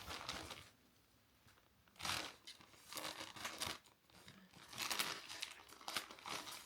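Packaging rustling and crinkling in several separate bursts as a clothing order is unwrapped by hand, with a short quiet spell about a second in.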